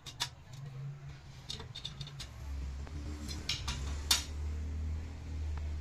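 Irregular metallic clicks and clinks of a socket tool on the cylinder-head bolts of a Suzuki Access scooter engine as they are tightened, with the sharpest click about four seconds in.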